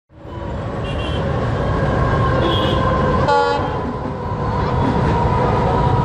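Diesel locomotive approaching with a steady engine and wheel rumble, giving one short horn toot about three seconds in.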